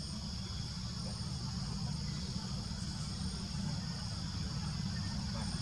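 Steady chorus of insects, an even high buzz that does not change, over a low steady rumble.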